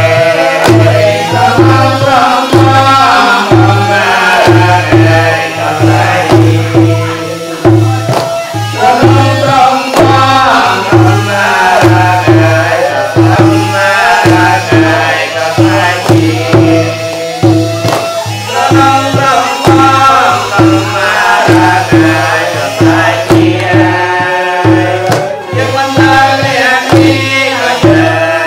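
Traditional Khmer ceremonial music: a hand drum keeps a steady, repeating beat under a continuous melody.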